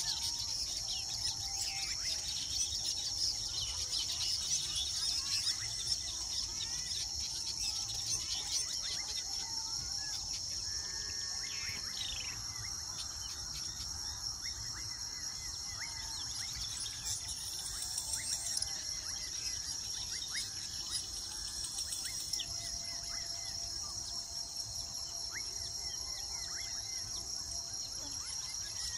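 Weaver birds chattering, with many short, rapid chirps and trills, over a steady high-pitched insect drone.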